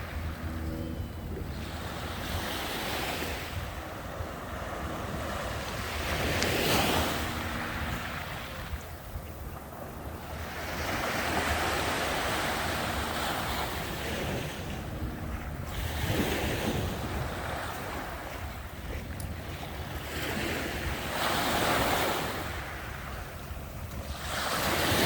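Sea surf: waves breaking and washing in, swelling to a louder surge about every four to five seconds over a steady wash, with wind rumbling on the microphone.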